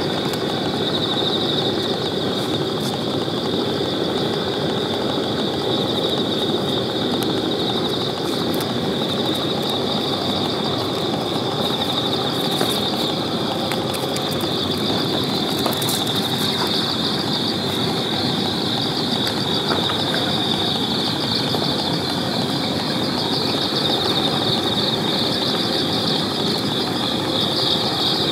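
Steady outdoor night ambience: a constant high-pitched drone over an even low rumbling hum, with a few faint clicks about halfway through.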